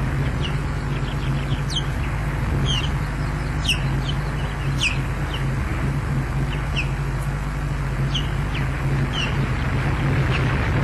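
Osprey calling: short, high whistled notes that slur downward, roughly one a second, over a steady low hum and hiss.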